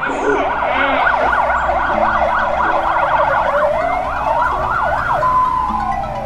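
An emergency siren in fast yelp mode, its pitch sweeping up and down several times a second. About three and a half seconds in it slows into long rising and falling wails, and it settles on a held tone near the end.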